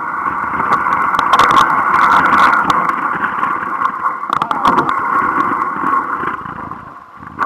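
A motorboat pushing through lake ice: its motor runs under a dense crackle of ice cracking and scraping against the hull. The sound is loudest in the first few seconds and eases off near the end.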